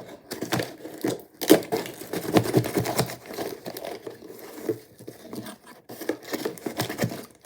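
Paper crinkling and rustling as a homemade paper vending machine and its prize are handled, with light taps and clicks. It is busiest a second or two in.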